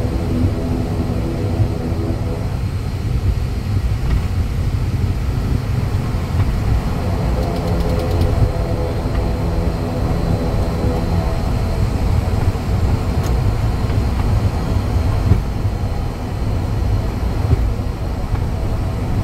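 Twin turboprop engines and propellers of an ATR 72-500 heard from inside the cockpit: a steady low rumble with a cluster of engine tones above it that fade and come back more than once.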